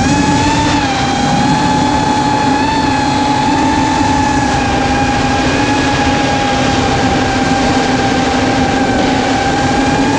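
Eachine Wizard X220 racing quadcopter's brushless motors and propellers whining in flight, holding a fairly steady pitch, over a steady rush of air noise.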